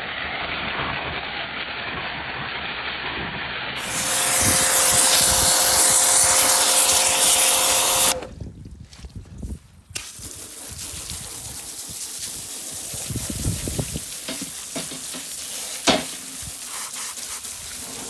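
Pressure-washer jet hissing as it blasts dirt and rust off a cast-iron Singer sewing machine treadle base. It is loudest for about four seconds in the middle, with a steady tone under the spray, breaks off sharply, then resumes more softly, with a sharp click near the end.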